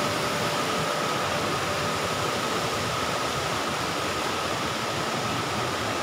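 Steady, even rushing hiss of water from the waterfall and stream.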